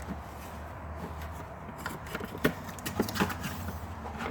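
Hands handling a tool kit and its case: scattered clicks, taps and rubbing, the sharpest knocks about two and a half and three seconds in, over a steady low hum.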